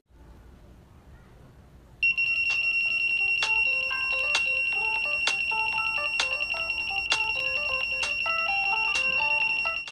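Piezo buzzer of a breadboard mobile-phone detector circuit sounding a steady high-pitched alarm tone, switching on about two seconds in: the circuit is picking up the phone's radio signal during an incoming call. Under it, the phone's ringtone plays a melody of short stepping notes.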